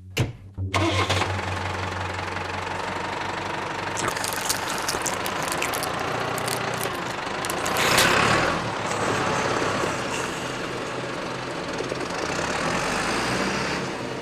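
Ford New Holland 7740 tractor running as it creeps forward, a steady engine and machine noise with a sharp click at the very start. A louder swell of noise comes about eight seconds in, as the rear wheel rolls over the figure on the ground.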